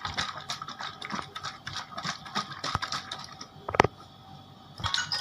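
A closed plastic container of borax and water being shaken by hand: a run of irregular rattling knocks, with one louder knock about three-quarters of the way through.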